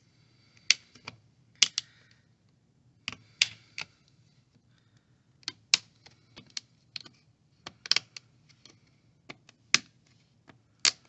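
Plastic screen-bezel clips of an HP Chromebook 11 G8 EE clicking and snapping loose as the bezel is pried off the lid. About fifteen short, sharp clicks come at irregular intervals, several in quick pairs.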